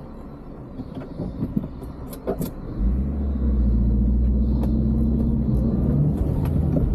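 A few light clicks, then about three seconds in the Wuling Hongguang minivan's engine and road noise rise sharply to a steady low rumble as the car pulls away. Heard from inside the cabin.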